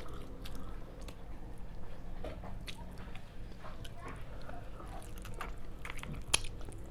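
Person biting and chewing roast chicken close to the microphone: scattered small wet clicks and crunches, with one sharper click near the end.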